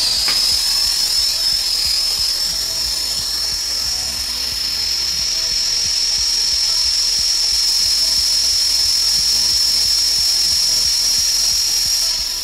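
Hose-fed soldering torch with a larger tip burning steadily, a constant hiss with a high-pitched tone over it, as its flame heats a copper pipe up to soldering temperature.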